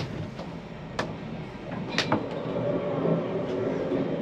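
Narrow-gauge railway carriage rolling slowly, heard from inside the coach: sharp clicks about once a second as the wheels cross rail joints, then a steadier, louder running rumble.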